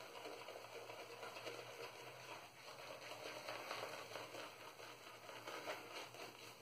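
Boar-bristle shaving brush swirling soap lather on the face: a faint, soft, crackly wet brushing.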